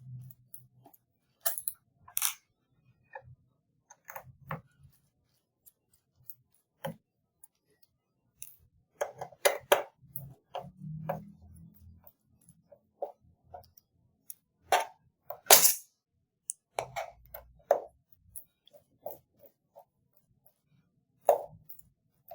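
Irregular light clicks and clinks of a Phillips screwdriver and small screws on a 2012 MacBook Pro's aluminium bottom case as the case screws are undone and set down one by one.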